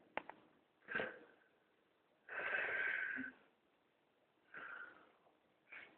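A sleeping man snoring loudly in a slow breathing rhythm: one long snore a little over two seconds in, with shorter breath noises before it and again near the end.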